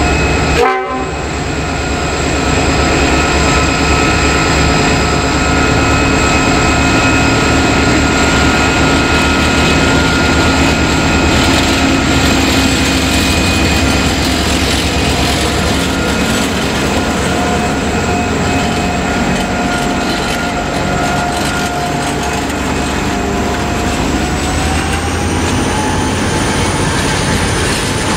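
Pacific National BL class diesel-electric locomotive BL32 passing close by, followed by a long train of empty grain hopper wagons rolling past. Steady wheel-on-rail rumble and clatter runs throughout, with several sustained high ringing tones over it.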